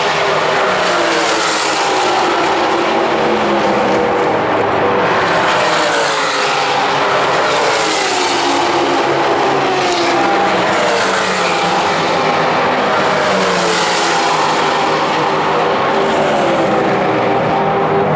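GT4 race cars passing at speed one after another, their engine notes overlapping and each falling in pitch as it goes by, with the loudest passes about a second and a half, eight and fourteen seconds in.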